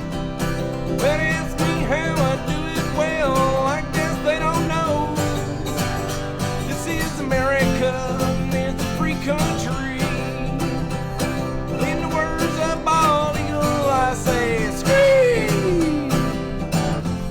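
A country song played on acoustic guitar, with a bending, wavering melody line carried over the strumming. Near the end the melody slides down a long way in pitch.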